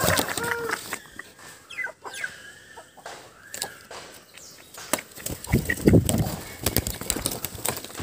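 Aseel chickens clucking, with short pitched calls in the first second, and a loud low rustle about six seconds in.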